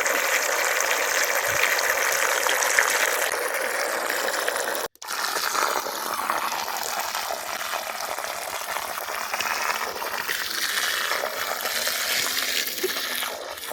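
Water rushing and splashing steadily, with a brief cut about five seconds in.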